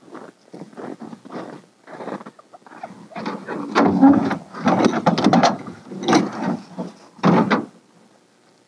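Irregular rustling and knocking as gear is handled in a pickup's bed under the raised camper-shell hatch. The sounds come in loud bunches, busiest in the middle.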